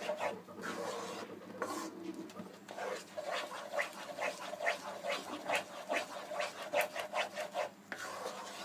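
Spoon scraping and stirring thick mango chutney in a cooking pan, in rhythmic strokes about three a second.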